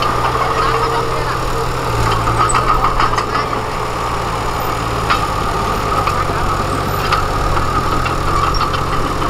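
Small crawler bulldozer's diesel engine running steadily as the machine pushes soil with its blade.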